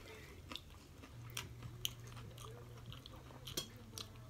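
Tortilla chips crunching as they are bitten and chewed, a few faint, sharp crunches spread through.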